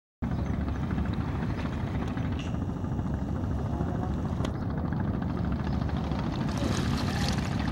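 Cargo motorboat's engine running steadily with a fast, low chugging as the boat moves along the river.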